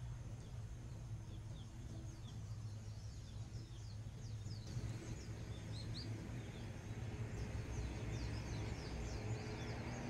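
Small birds chirping again and again over a low, steady hum, the chirps thickest in the middle seconds.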